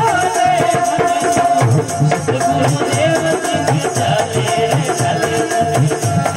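Instrumental passage of a Rajasthani devotional bhajan: held melody notes over a steady hand-drum beat and jingling rattle percussion.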